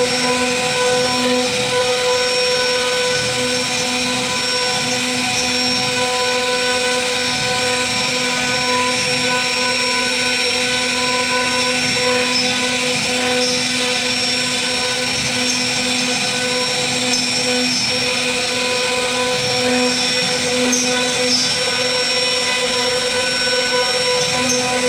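CNC router spindle running at high speed while it carves a wooden relief panel: a steady whine over even cutting noise.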